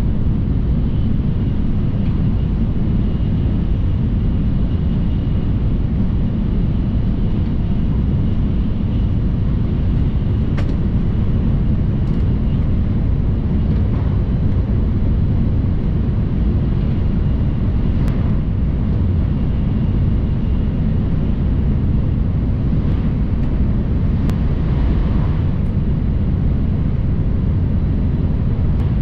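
Shinkansen bullet train running at speed: a steady low rumble with a faint, constant high whine and a few light clicks.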